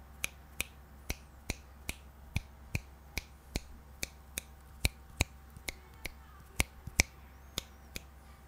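Fingers snapping in a steady run, about two or three snaps a second, some loud and some much fainter, as they are made around a Samson Go USB microphone set to its front-facing pattern. The snaps in front are picked up fully, while those behind come through weaker.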